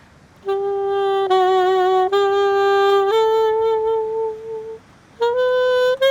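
Saxophone playing a slow hymn melody as a single line of held notes. It comes in about half a second in, some notes have a slight vibrato, and after a brief pause near the end it moves on to a higher held note.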